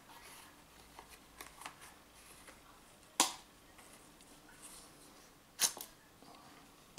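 A fixed-blade knife being drawn from its leather sheath and handled: faint rubbing and rustling, with two sharp clicks, one about three seconds in and one near the end.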